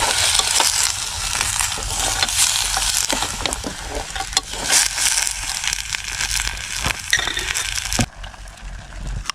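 Food sizzling in a pan, stirred with scrapes and clicks. The sound cuts off suddenly about eight seconds in, leaving a quieter, duller background.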